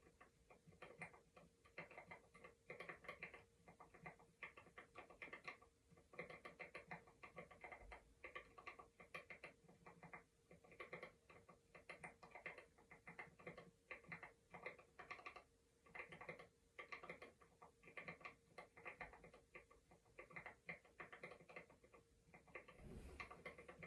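Soft keyboard typing: irregular runs of light key clicks with short pauses between them.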